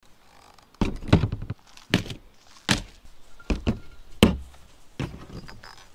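Gear being set down one piece after another on a plastic folding table: a big-bore air rifle, boxes of shotgun shells and an air tank. About seven sharp thunks and knocks over some four seconds.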